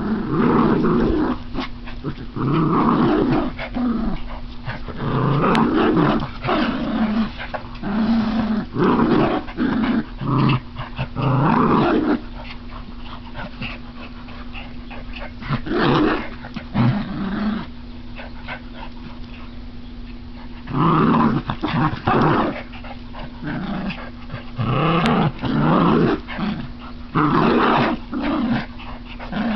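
Two small dogs, a miniature schnauzer and a pomapoo, growling in play as they tug on a plush toy: repeated growls, each a second or so long, with a couple of quieter stretches in the middle.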